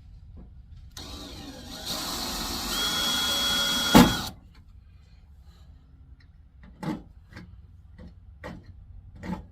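Electric drill running for about three seconds, drilling out a steel rivet in a truck door, its whine rising partway through and ending in a sharp bang as the bit catches; then a few light knocks and clicks. The rivets are resisting the drill.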